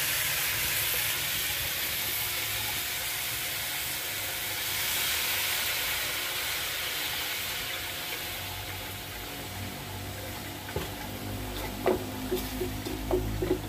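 Pork pieces sizzling in a wok as soy sauce is added, the sizzle fading over several seconds. Near the end a metal ladle knocks and scrapes against the wok several times as the meat is stirred.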